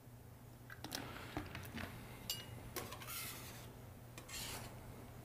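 Putty knife scraping on a slate table bed, mixing water into seam-putty powder: a few light clicks of the blade on the stone, then rasping scrapes from about three seconds in.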